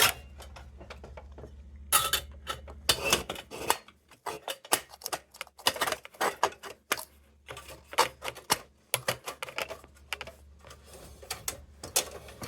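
Irregular sharp clicks and short light clatters of small metal parts being handled, a few loud strokes standing out among many softer ones.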